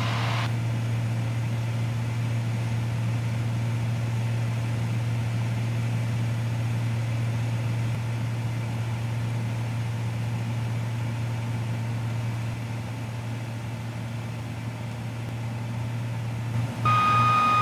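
Steady drone of a 1972 Piper Cherokee 235's six-cylinder Lycoming O-540 engine and propeller in flight during a descent, heard inside the cabin. A thin steady tone comes in near the end.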